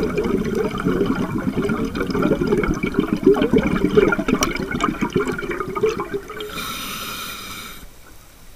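Scuba diver breathing through a regulator, picked up by the microphone in the video mask underwater. Exhaled bubbles gurgle and rush past the mask for about six seconds, then a short steady hiss of an inhalation through the regulator follows, and it goes quieter near the end.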